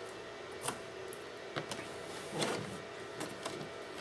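A few faint, irregular small clicks and taps of hands handling laptop parts while fitting the screen's video cable connector, over a steady low hiss.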